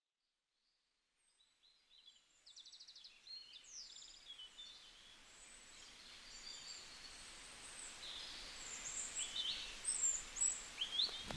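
Silence, then a soft outdoor ambience of small birds chirping and trilling fades in and grows louder, with a rapid trill a few seconds in.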